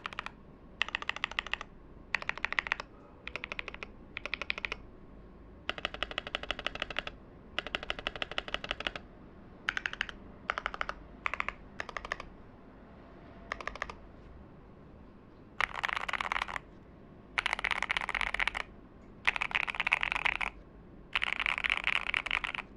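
Mechanical keyboard with Gateron Baby Kangaroo tactile switches, factory-lubed, clacking on a top-mount board with a brass plate, typed in short bursts of rapid keystrokes with pauses between. The last four bursts are longer, denser and louder.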